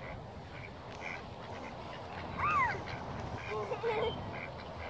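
Ducks quacking: a few short calls, the loudest about two and a half seconds in.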